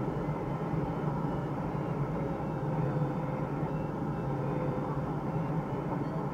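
Steady rush of airflow around a glider's cockpit in soaring flight.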